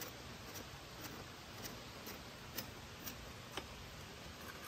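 Light, small metallic clicks, about one every half second, as brake pads and a pad pin are handled and fitted into a dirt bike's rear brake caliper.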